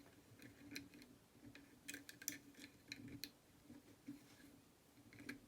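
Faint, scattered small metallic clicks and taps of lock-picking tools being handled at an old lever lock, a quick cluster of them a couple of seconds in, over a faint steady low hum.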